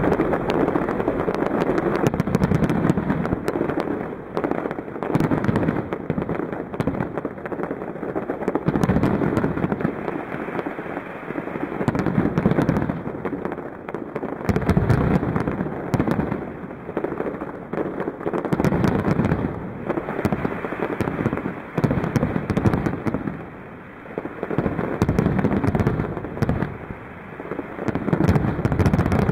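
Aerial fireworks display: shells bursting one after another in a near-continuous barrage of booms and crackles, easing in a couple of brief lulls.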